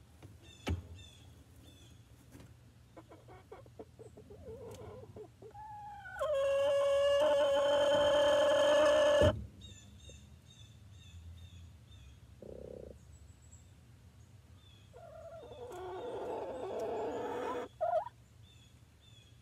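Domestic hen giving a long, loud call of steady pitch that lasts about three seconds, starting with a short rising note. A second, rougher call comes near the end. Small birds chirp softly and repeatedly in the background.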